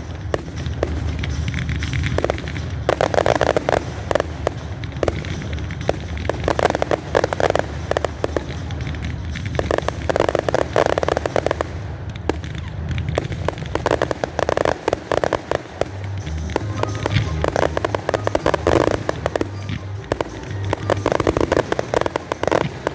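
Aerial fireworks display: clusters of crackling bursts every few seconds, one after another, with music playing underneath.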